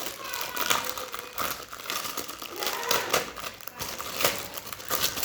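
Paper leaflets and packaging crinkling and rustling as they are handled, in quick irregular crackles.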